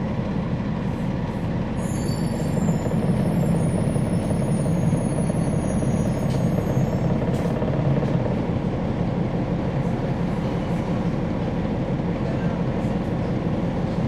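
Inside a 2011 NABI 416.15 (40-SFW) transit bus, its Cummins ISL9 inline-six diesel engine running steadily. From about two seconds in to about seven, a high-pitched squeal of several tones rides over the engine.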